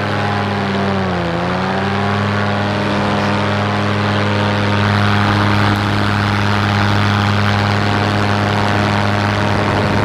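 Paramotor engine and propeller running steadily at high power during the climb after launch, with a brief dip in revs about a second in before it picks back up.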